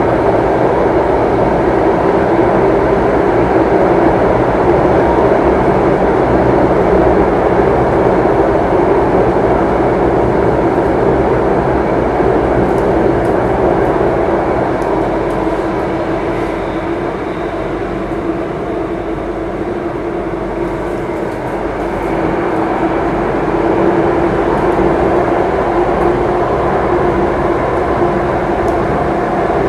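Singapore MRT Circle Line train running, heard from inside the carriage: a steady running noise that eases a little past the middle and then builds again.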